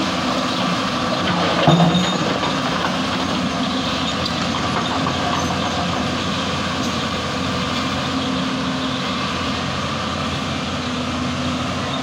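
Hyundai crawler excavator's diesel engine running steadily under hydraulic load as the machine lifts its boom and travels on its steel tracks, with track clatter. A brief louder clunk about two seconds in.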